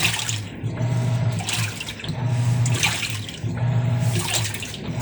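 Sharp automatic washing machine draining at the start of its spin-dry cycle: water rushing out over a low motor hum, swelling and easing about every one and a half seconds. It is the sign that the no-drain fault is fixed and the machine now expels its water.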